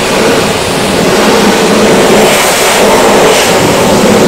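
Steam jenny pressure wand blasting hot water and steam against a bus's chassis and axle: a loud, steady rushing spray.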